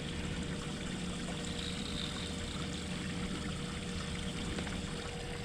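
Steady water noise of water moving along a boat's hull, with a faint steady hum underneath.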